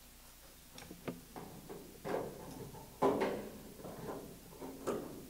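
Clecos being set with cleco pliers into the holes of the elevator connect and aluminum elevator: a series of separate metal clicks and clacks, the loudest about three seconds in.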